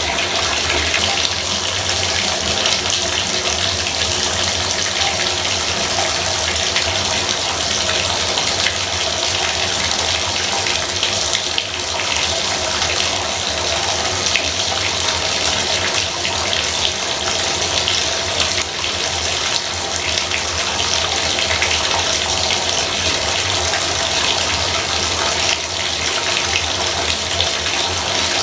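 Bathtub faucet running steadily, water splashing into the tub in an even, unbroken rush.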